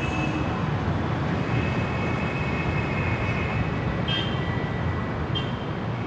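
Steady rumble of city vehicle traffic, with faint high tones in it.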